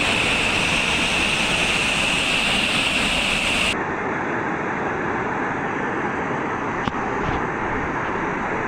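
Waterfall water rushing with a steady noise. A steady high hum rides over it until about four seconds in, where the sound changes abruptly and the highs drop away. There is a single short click near the end.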